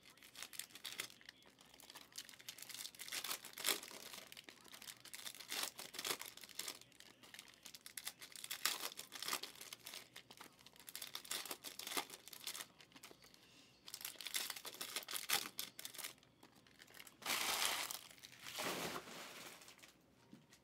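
Foil trading-card pack wrappers crinkling and tearing as packs are opened and the cards handled, in irregular crackly bursts. A longer, steadier rustle comes near the end.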